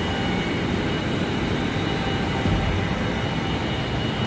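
Steady machinery noise of an industrial plant: a continuous low rumble with a faint high whine running through it.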